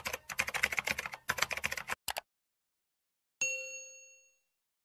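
Keyboard-typing sound effect: a rapid patter of key clicks for about two seconds. About three and a half seconds in comes a single bell ding that rings out and fades over about a second, the notification-bell chime of a subscribe-button animation.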